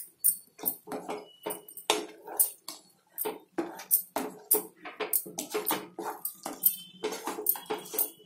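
Wooden spatula stirring thick sorrel-and-toor-dal (chukka kura pappu) in a non-stick pan: irregular wet scraping and squelching strokes, about two or three a second, as the tempering is mixed through the dal.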